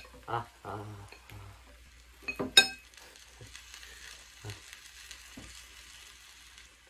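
Pork, green peppers and yakisoba noodles sizzling in an electric cooking pot as they are poured in and stirred. There is a sharp ringing clink of crockery or utensil on the pot about two and a half seconds in, then a steady light sizzle.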